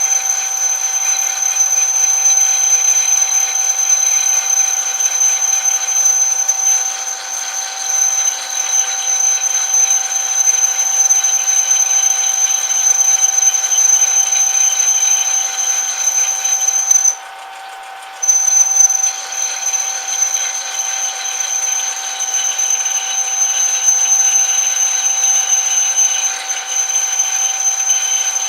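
Metal lathe running steadily with a high, constant whine. It cuts out for about a second roughly two-thirds of the way through, then carries on.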